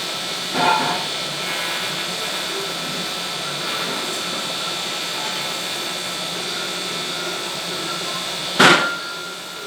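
Electric arc welding: a steady hiss from the arc. Two sharp metallic knocks cut across it, one about a second in and a louder one near the end that rings briefly.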